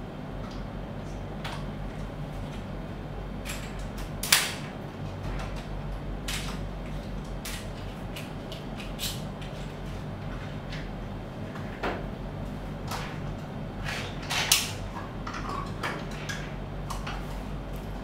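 Clicks and taps of a nylon compact safety padlock and plastic lockout hasp being opened, taken off a valve lockout and handled, over a low steady hum. The two sharpest knocks come about four seconds in and near fourteen and a half seconds.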